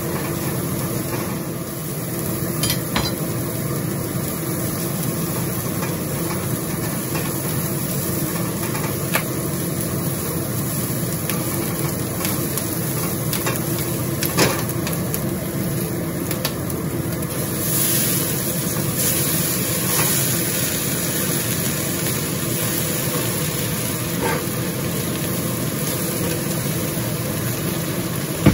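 Dried shrimp and garlic sizzling in oil in an iron wok while a metal spatula stirs them, with a few sharp scrapes and taps of the spatula on the pan. The sizzle grows brighter for a couple of seconds past the middle, over a steady low hum from the stove.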